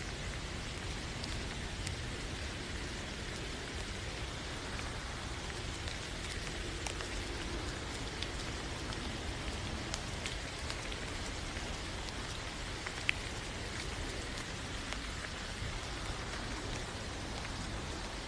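Steady rain falling, an even hiss with scattered individual drops ticking through it; one sharper drop stands out about two-thirds of the way through.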